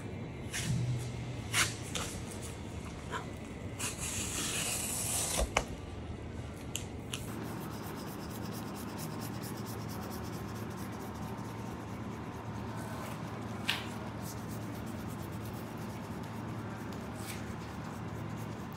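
Kitchen knife cutting and scoring a raw salmon fillet on a cutting board: several sharp knocks of the blade in the first six seconds or so, then a fast, even run of fine scraping ticks as the blade scores the flesh.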